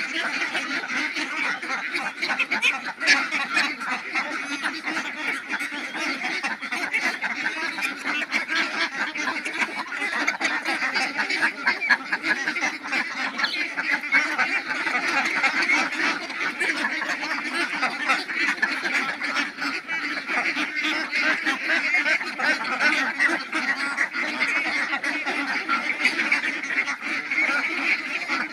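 A large flock of domestic ducks quacking together in a steady, dense chorus of overlapping calls.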